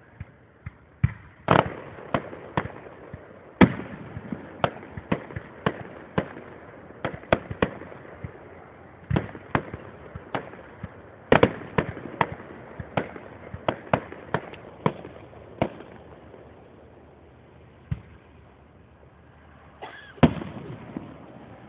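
Aerial fireworks shells bursting in a rapid, irregular string of bangs, several a second at the busiest. The bangs thin out over the last few seconds, with a last couple near the end.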